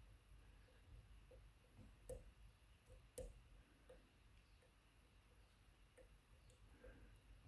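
Faint, scattered small clicks and ticks of a lock pick working the pins of a Zeiss Ikon WSW sidebar lock under tension, with two sharper clicks about two and three seconds in.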